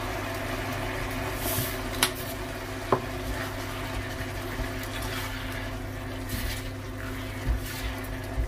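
Sauce simmering in a non-stick wok while a silicone spatula stirs it, with a couple of small knocks of the spatula on the pan about two and three seconds in. A steady low hum runs underneath.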